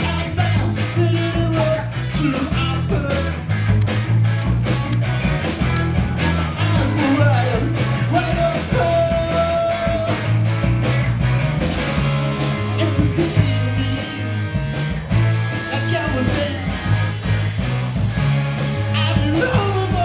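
Live rock band playing: electric guitars over a steady bass line and drum kit.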